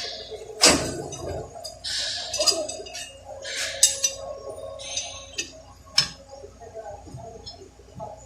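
Metal transmission parts being handled and fitted: short scraping sounds and several sharp clicks and clinks, spaced irregularly, over a faint steady hum.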